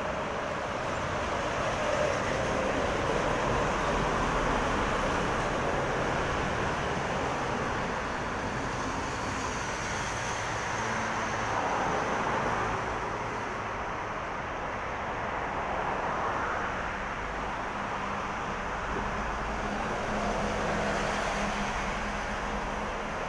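Road traffic on a multi-lane road below: a steady hum of tyres and engines that swells several times as cars go by.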